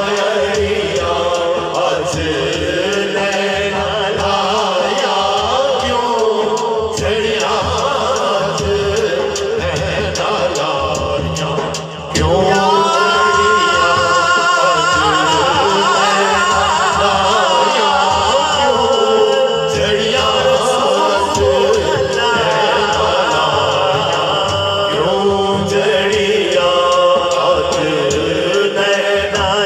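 Men singing a Punjabi naat through microphones and loudspeakers, a lead voice with backing singers, over a regular low beat. The singing gets louder about twelve seconds in, where a new sung line starts.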